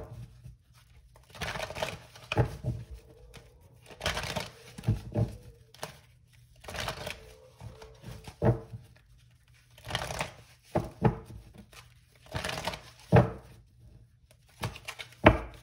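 A deck of cards being shuffled by hand: a series of short papery shuffling bursts, roughly one every second or so, with a few sharper snaps of the cards.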